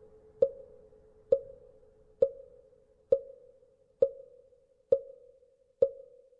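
Wooden fish (mõ) struck in a slow, even beat: seven hollow knocks a little under a second apart, each with a short ring. This is the steady beat that keeps time in Buddhist chanting and meditation. A fainter lingering ring fades out in the first second or two.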